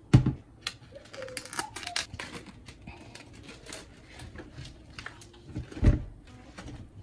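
A plastic colander set down with a thud in a stainless-steel sink, then the crinkling and crackling of a plastic meat packet being torn open. A second thump just before the end as the raw chicken drops out of the packet into the colander.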